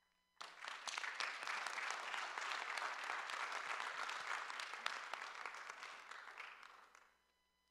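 Applause from many hands clapping. It starts abruptly about half a second in and dies away near the end.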